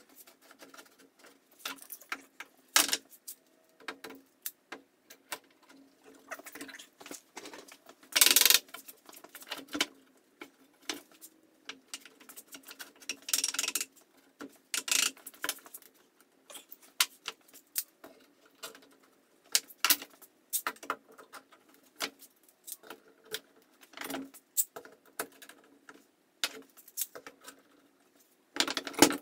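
F-style bar clamps being fitted and tightened on a glued-up stack of plywood: scattered clicks, knocks and metallic rattles as the jaws slide along the bars and bump the wood. There are a few longer scraping bursts, the loudest about 8 and 13 seconds in, over a faint steady hum.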